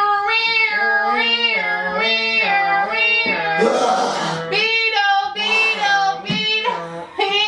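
A person singing a wordless tune as a vocal sound effect, holding long notes that step up and down in pitch, with a few short breaks for breath.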